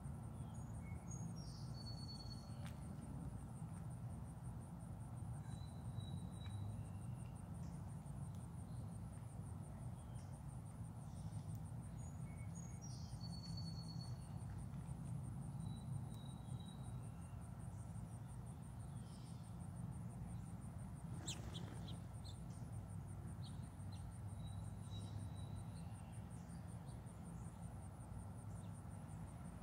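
Insects trilling steadily at a high pitch, with a few short bird chirps: a falling chirp twice, about ten seconds apart, and brief higher notes in between, over a low steady rumble.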